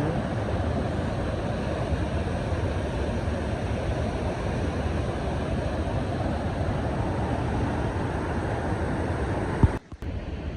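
Steady rushing of a flooded, fast-flowing river in spate, heavy in the low end. Near the end a sharp click is followed by a brief drop-out before the rushing resumes.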